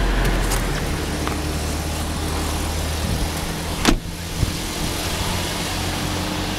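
A 2009 Toyota Prius's 1.5-litre four-cylinder petrol engine running steadily. A car door shuts once about four seconds in, the loudest sound, followed by a smaller click.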